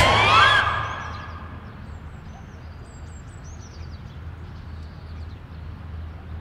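Music fades out in the first second. Then comes quiet outdoor ambience: a low steady hum with a few faint, high bird chirps.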